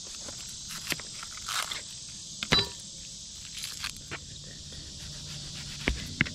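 Insects chirping steadily, crickets among them, with a few sharp knocks and clicks over it; the loudest knock comes about two and a half seconds in.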